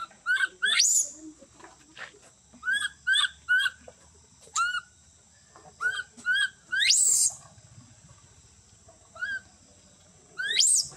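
Infant macaque crying: short, high squeaky calls that hook upward in pitch, coming in irregular groups with pauses between them. Around seven seconds in and again near the end it gives a longer call that sweeps steeply upward into a shrill squeal.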